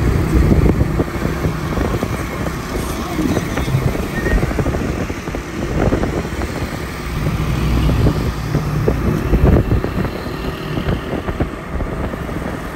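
Street traffic heard from a moving car: a steady road and engine rumble, with motorcycles running close alongside.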